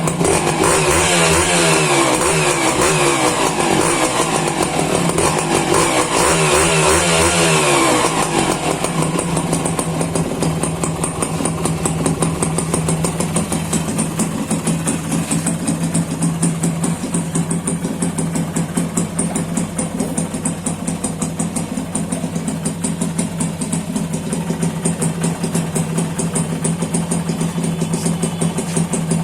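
1992 Honda motorcycle engine revved up and back down twice, then settling into a steady, even idle for the rest of the time.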